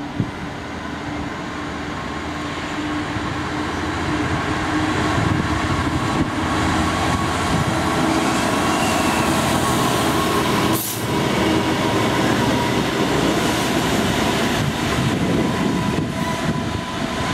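A convoy of Class 66 diesel-electric locomotives running coupled together, their two-stroke V12 diesel engines droning along with the rumble of wheels on the rails. The sound grows louder over the first few seconds as they approach, then holds steady, with a short break about eleven seconds in.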